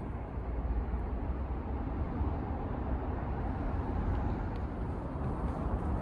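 A vehicle running by: a steady low rumble that builds slightly in the first second and then holds.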